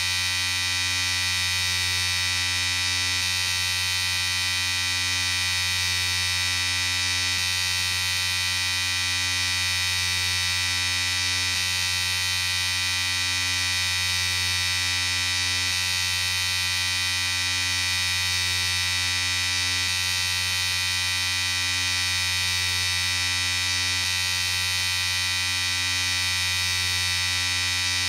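Electric shaver running continuously with a steady, even buzz.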